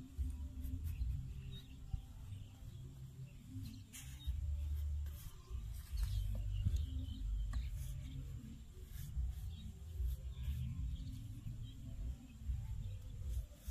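Soft scraping and small clicks of hands working loose damp soil, over an uneven low rumble of wind on the microphone.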